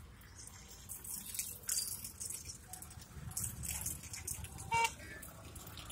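Razor scraping over stubble on the jaw and neck, in short scratchy strokes. A brief high squeak near the end is the loudest sound.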